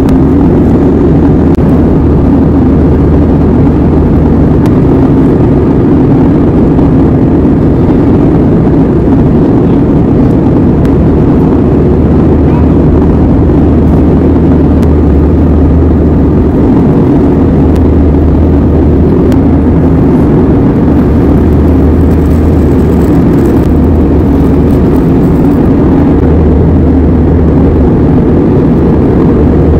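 Airliner cabin noise from a window seat: the steady, loud roar of the jet engines and airflow, with a low hum underneath, as the plane descends on approach to land.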